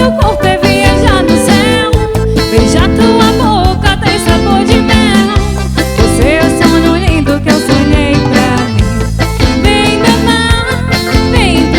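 Band playing melody, the Pará brega dance style, with guitar and a steady dance beat, and possibly a voice or a bending lead guitar line.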